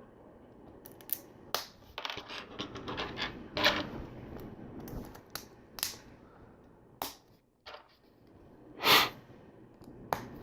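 LEGO plastic bricks and plates clicking and clattering as pieces are handled and pressed together, with a run of rapid clicks about two to four seconds in and a louder, longer clatter about nine seconds in.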